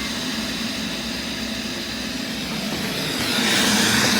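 Robot vacuum cleaners running on carpet: a steady whir of suction motors and brushes, growing louder with more hiss about three seconds in as one comes close.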